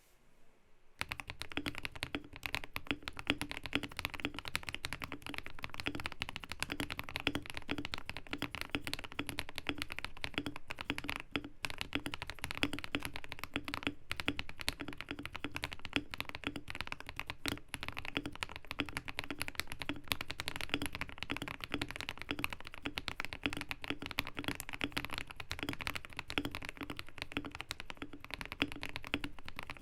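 Typing on a Keydous NJ80 mechanical keyboard with a brass plate and lubed KTT Kang White linear switches. A steady, dense stream of keystrokes starts about a second in and carries on throughout.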